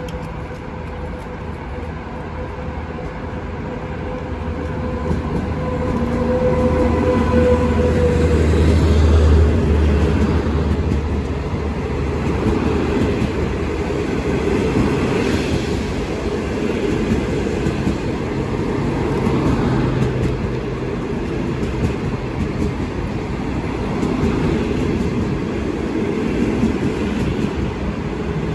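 A train passing close by. A low hum with a steady whine builds to its loudest about eight to ten seconds in, then the cars roll past with an even noise of wheels on the rails.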